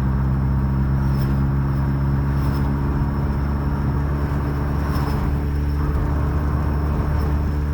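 Ford Focus ST running steadily, with a faint, short high-pitched chirp recurring every one to two seconds.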